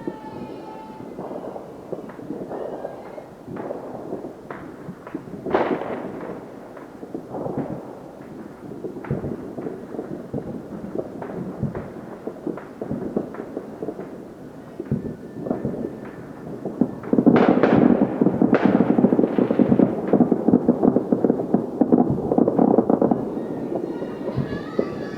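Fireworks going off across a neighbourhood: scattered sharp bangs and pops. About two-thirds of the way in they build into a dense, louder run of rapid crackling bangs lasting several seconds.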